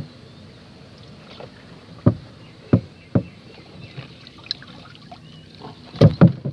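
Wooden and hollow knocks against a small boat's hull as a wire-mesh fish trap is pulled from flooded grass and lifted aboard: three separate knocks about two to three seconds in, then a loud cluster of knocks as the trap is swung into the boat near the end, over a steady low rustle.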